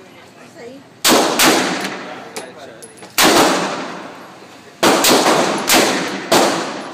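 Semi-automatic pistol shots in an indoor range: seven shots at an uneven pace, each with an echoing tail. A quick pair comes about a second in, a single shot in the middle, and a run of four closer together near the end.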